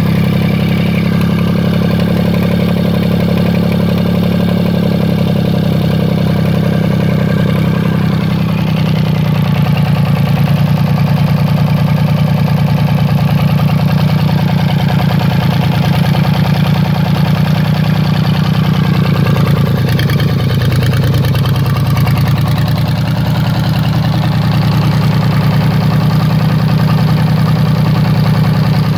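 Volvo Penta 2003 three-cylinder marine diesel idling steadily with an even, rapid firing beat. Its speed shifts slightly about eight seconds in and again about twenty seconds in.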